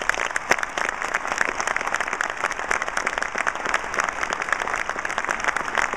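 A large audience clapping in dense, steady applause.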